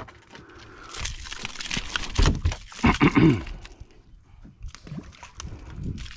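A snapper flopping and slapping on a boat deck as it is unhooked with pliers and handled, with heavy thumps about two to three seconds in.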